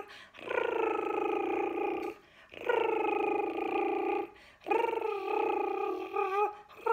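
A voice making a long rolled "rrrr" trill, the sound of the letter R, three times with short breaks and a fourth starting at the very end. It is likened to a helicopter passing.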